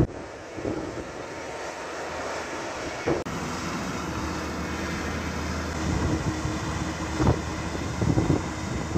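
An engine running steadily, with an abrupt break about three seconds in.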